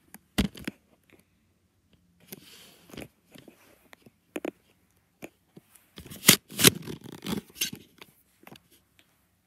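Light clicks, knocks and scrapes of small plastic toys being handled and set down, scattered and busiest about six to seven and a half seconds in.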